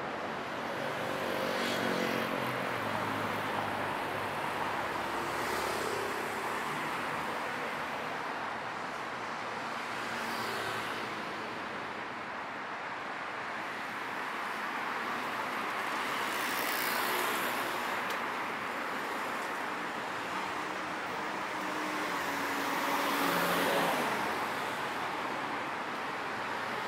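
Road traffic: a steady wash of tyre and engine noise from cars passing close by. It swells as vehicles go past, most strongly about three seconds before the end.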